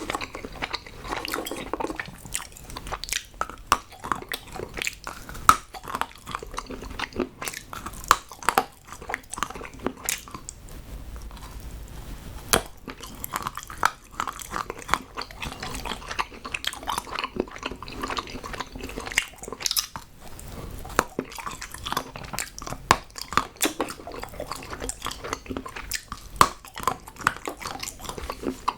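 Close-miked chewing and biting of hard chocolate, with frequent sharp crunchy snaps and clicks.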